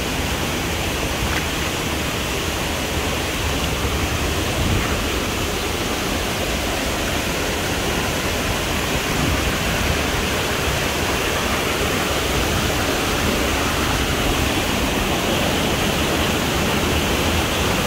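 Waterfall pouring onto rocks into a pool, a steady, even roar of rushing water.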